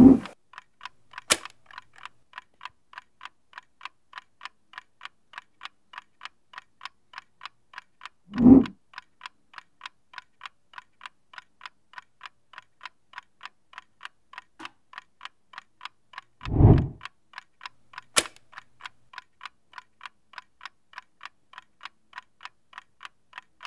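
A clock ticking steadily, about two and a half ticks a second, with a deep boom roughly every eight seconds and a couple of sharp clicks.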